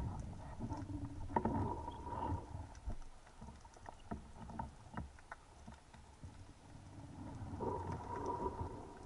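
Underwater ambience recorded by a speargun-mounted camera: a faint low rumble of water with scattered sharp clicks and crackles.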